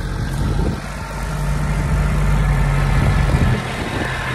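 Corvus Terrain diesel utility vehicle's engine idling steadily.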